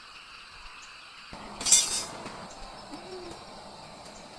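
Quiet outdoor ambience with faint high ticks, broken by a brief loud hiss-like scrape about one and a half seconds in and a single short low hoot about three seconds in.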